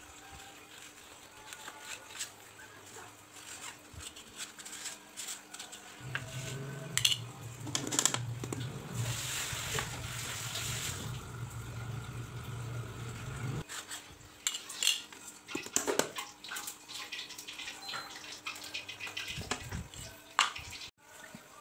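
Nail point scraping into an MDF board as a wooden strip pivoting on a second nail is turned round and round to score out a circular speaker hole, in quick irregular scrapes and clicks. A low steady hum runs underneath from about six seconds in until nearly fourteen seconds.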